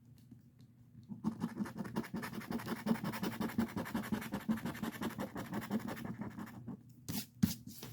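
Rapid scraping as the coating is scratched off a lottery scratch-off ticket. It starts about a second in and runs for about five seconds, followed by two short scrapes near the end.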